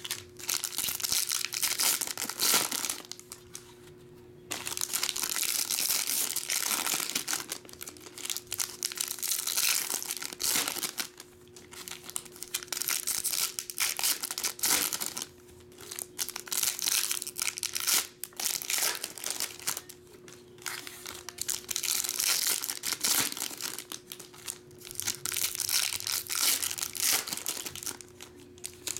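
Foil trading-card pack wrappers crinkling and tearing as packs are ripped open by hand, in repeated bursts with short pauses between them.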